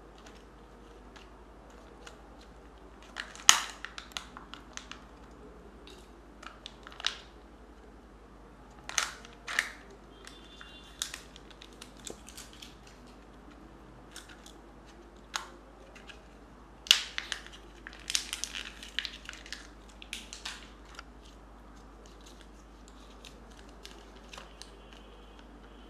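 Plastic Kinder Joy egg capsules and toy packaging handled and opened by hand: scattered sharp plastic clicks and snaps with bursts of crinkling. The loudest snaps come about three seconds in and again around seventeen seconds, with a run of crackling just after.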